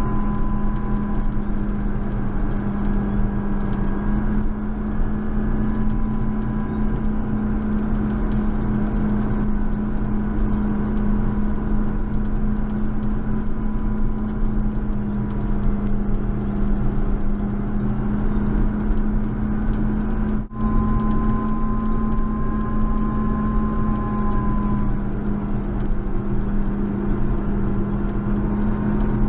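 JCB Fastrac 4220 tractor's diesel engine running steadily, with a high whine over the engine hum. The whine fades away partway through and comes back after a brief sudden dropout about twenty seconds in.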